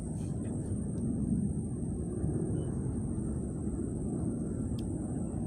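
Steady low outdoor rumble, with a thin constant high-pitched whine above it and a few faint ticks.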